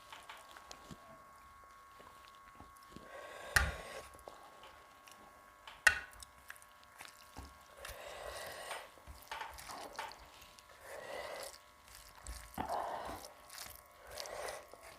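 Close-miked eating of rice with bhola fish curry: soft, repeated mouth and chewing sounds, with two sharp clicks, one a few seconds in and one about six seconds in.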